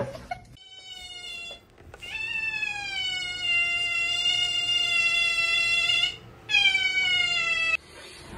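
Cat yowling: three long, drawn-out calls, each sliding slightly down in pitch. The middle call lasts about four seconds.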